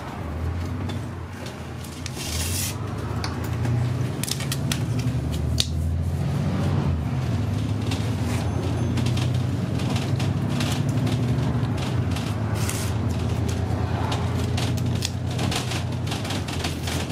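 Steady low drone of a moving city bus's engine heard from inside the cabin, with scattered clicks and rattles throughout.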